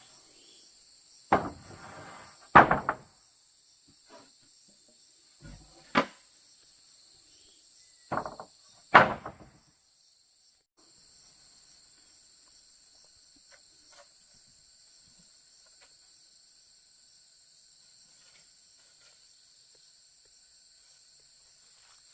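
About six sharp knocks in the first ten seconds, each with a short ring, over a steady high chirring of insects that carries on alone afterwards.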